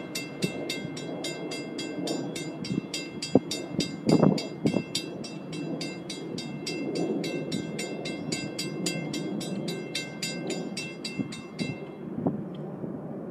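Railroad crossing bell ringing rapidly, about four strokes a second, over the rumble of a passing CSX train with a few sharp clanks. The bell stops about twelve seconds in.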